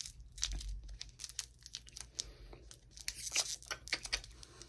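Candy-bar wrapper crinkling and crackling in irregular bursts as hands pull and twist at it, trying and failing to tear it open. The loudest crackling comes about three and a half seconds in.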